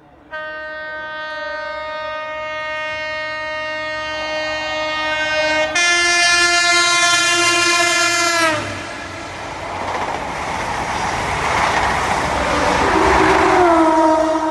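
Class 43 power car of an InterCity 125 high-speed train sounding its horn as it approaches at speed, a long steady note joined by a second, louder one that drops in pitch as the train passes. The horn cuts off and the train rushes through. Another falling horn note comes near the end.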